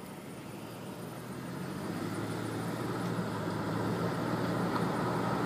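Car engine and road noise building steadily as the car picks up speed, with a low steady hum under the rush of the tyres.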